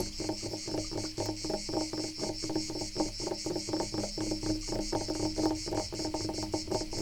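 Rapid, repeated scratching strokes on wood, several per second and unbroken, with crickets chirping steadily behind.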